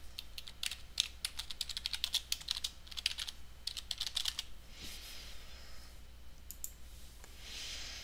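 Typing on a computer keyboard: a quick run of keystrokes for about four seconds, then two soft rushes of noise in the second half.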